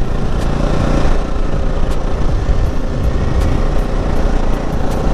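Motorcycle engine running steadily with a dense low rumble.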